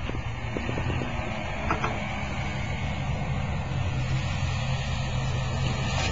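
Steady low rumble like a running engine, with a few light clicks about half a second and nearly two seconds in.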